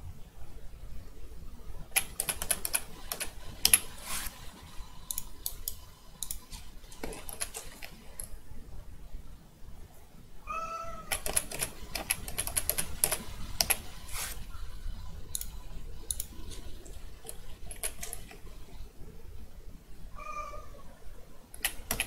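Computer keyboard and mouse being clicked in quick bursts of tapping while editing. Two short high-pitched cries come through, one about ten seconds in and another near the end.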